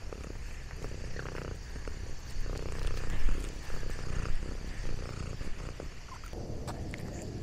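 Domestic cat purring, picked up close by a microphone on its collar: a steady low rumble with scattered light clicks and rustles on top, louder for a while in the middle.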